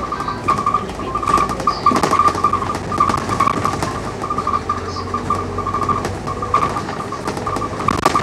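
Inside a Scania K310UD double-decker bus: the engine hums low while the cabin gives off many small rattles and clicks. A high whine keeps breaking up and coming back throughout.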